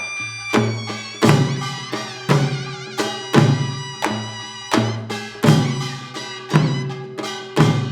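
Korean nongak percussion ensemble playing beokku-nori: hand-drum strikes and metal gongs struck in a steady rhythm, roughly once or twice a second, each gong stroke ringing on with a wavering tone.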